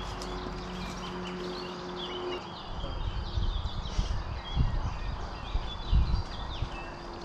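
Large stones thudding as they are dropped and set into a ditch, a few irregular heavy thumps, with birds chirping and singing throughout. A low steady hum runs for the first couple of seconds and comes back near the end.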